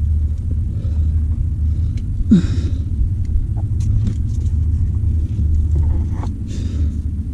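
A climber struggling up a rock chimney: scattered scrapes and knocks of gear and body against rock over a steady low rumble, with one short rasping burst about two seconds in.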